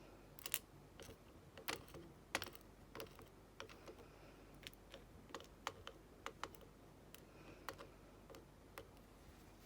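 Faint, irregular light clicks and taps of small metal lock pins and springs being handled and set down on a hard surface, about twenty in all.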